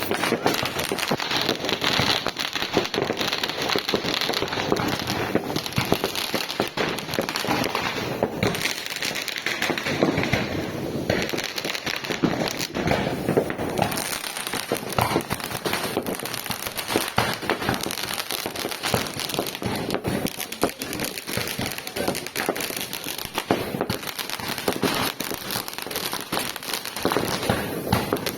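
Fireworks display: a dense, continuous barrage of firework bangs and crackling, with no let-up.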